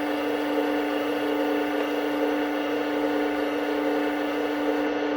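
A 1/16 RC tank running on a Clark TK50 sound unit: a steady engine hum from its upgraded speaker, with the electric turret traverse motor turning the turret.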